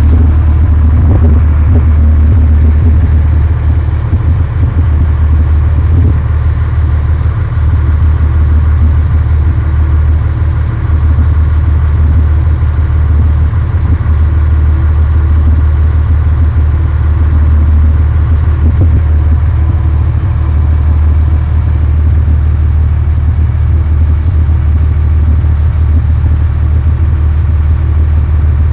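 Boat engine running steadily: a loud, low drone that holds even throughout.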